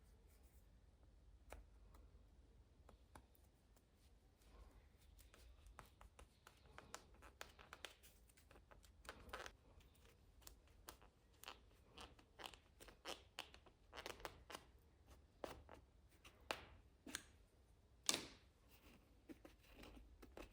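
Faint, irregular scraping and crunching of a sharp knife tip boring a small hole into a whole dried coconut kernel (khopra gola), in many short strokes, with one louder scrape near the end.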